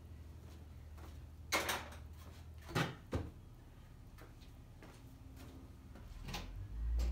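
A few sharp knocks and clunks of handling in a workshop over a steady low hum, with a low rumble swelling near the end.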